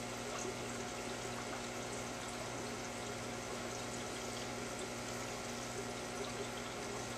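Aquarium water bubbling and splashing at the surface from the air-lift tubes of sponge filters, steady throughout, over a low steady hum.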